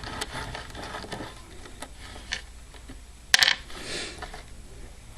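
Small metal lock parts clicking and clinking as a mortise lock cylinder is taken apart by hand, with one sharp metallic clink about three and a half seconds in.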